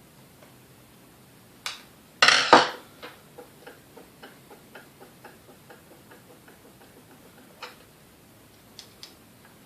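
Metal grinder parts and tools being handled on a workbench: a click, then a loud metallic clatter, followed by a run of light, evenly spaced clicks, about three or four a second, that fade away, and a few single clicks near the end.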